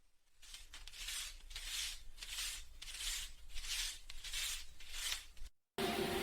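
Paper banknotes being counted or flipped by hand: about eight crisp paper swishes in an even rhythm, one every two-thirds of a second, stopping abruptly near the end.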